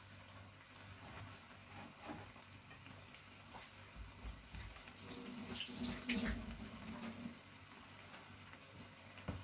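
Curry in a wok simmering quietly on the hob with faint bubbling and sizzling, the vegetables left to cook down until the butternut squash turns soft. A faint low hum rises and fades about five to seven seconds in.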